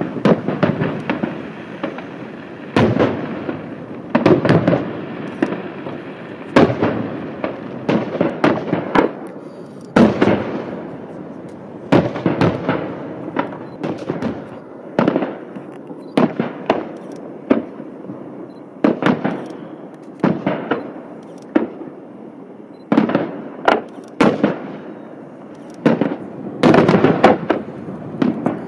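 Aerial firework shells bursting, a steady run of sharp bangs every second or two, sometimes several in quick clusters, each trailing off in a rumbling echo.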